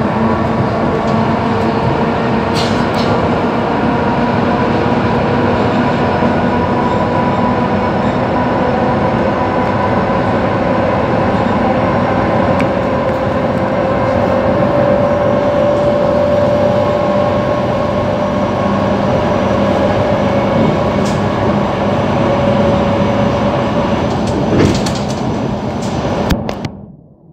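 Inside an ER9T electric multiple unit running at speed: a steady rumble of wheels on rail with a faint whine through it and a couple of brief clicks. The noise falls away sharply near the end.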